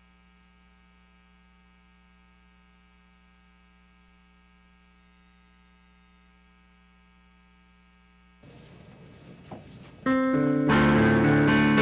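Steady electrical mains hum. About ten seconds in, a piano starts playing a hymn introduction, much louder than the hum.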